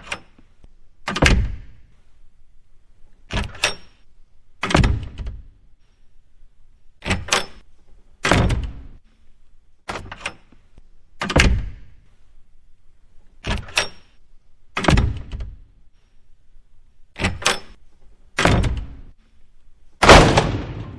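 A series of about thirteen heavy knocks or thuds, mostly in pairs a little over a second apart, with short pauses between the pairs.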